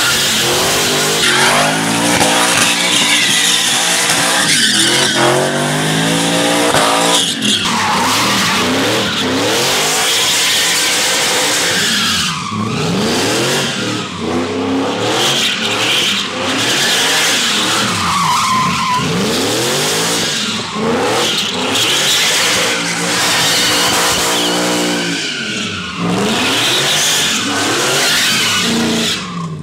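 Ford F100 pickup doing donuts: its engine revs up and down over and over while the rear tyres spin and squeal against the pavement.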